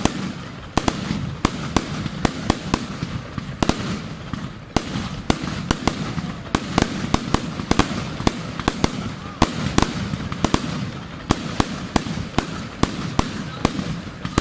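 Fireworks going off: a rapid, irregular string of sharp bangs and cracks, roughly three a second, over a continuous low rumble.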